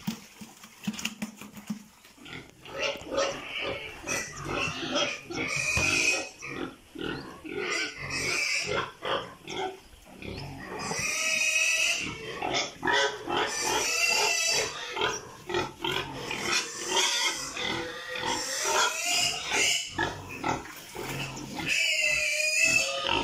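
Animal calls, repeated in irregular runs, starting about two seconds in after a quieter opening.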